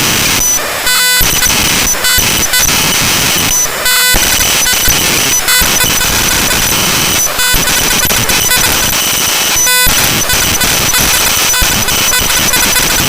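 Raw binary data of the drivefsext.dll program file played back directly as audio: loud, harsh noise with buzzing and a few steady high tones. The texture changes abruptly every second or so, with brief dips.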